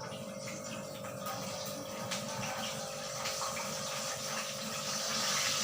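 Tilapia frying in hot oil, a steady sizzle with scattered crackles that grows louder near the end.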